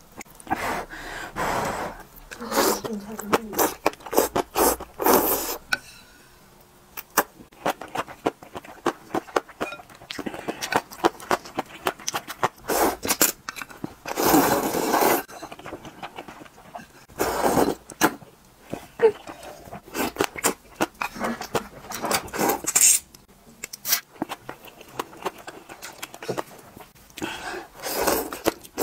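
Close-up eating sounds: noodles and broth slurped from chopsticks and a spoon, with many short chewing and lip-smacking clicks between the slurps. The longest slurp comes about fourteen seconds in.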